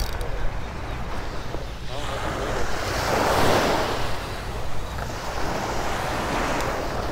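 Small surf breaking and washing up the sand, one wave swelling loudest about three and a half seconds in, with wind rumbling on the microphone.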